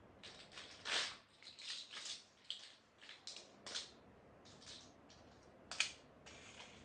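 Lego bricks being handled and pressed together: a string of irregular short plastic clicks and rustles, loudest about a second in and again near the end.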